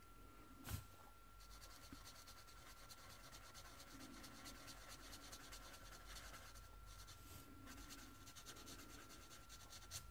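A single sharp click about a second in, then the faint scratchy strokes of a Promarker alcohol marker's tip colouring quickly back and forth on paper.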